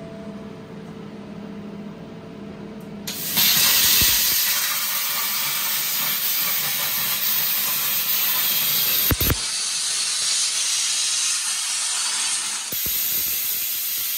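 Primeweld Cut60 air plasma cutter firing through its IPT-60 torch at 45 amps and 60 PSI air: a low hum gives way about three seconds in to a sudden loud, steady hiss as the arc cuts steel. A sharp click comes about nine seconds in, and the hiss of air keeps going afterwards, with the post-flow set to about 10 seconds.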